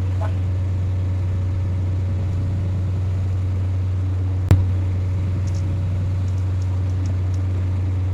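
Steady low engine hum, with a single sharp click about four and a half seconds in.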